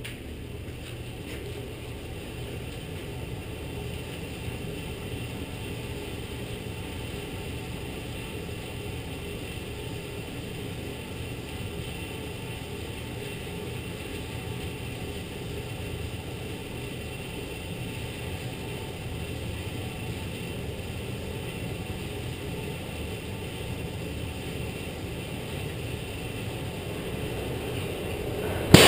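Traction elevator car coming down the hoistway at full speed, heard from the pit: a steady mechanical hum with a low drone that slowly grows louder as the car nears. At the very end it turns suddenly loud as the car arrives to strike the pit buffer in a full-speed, full-load buffer test.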